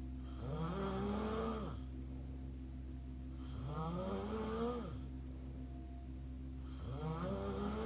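Snoring through an open mouth: three snores about three seconds apart, each a pitched drone that rises and then falls, over a steady low hum.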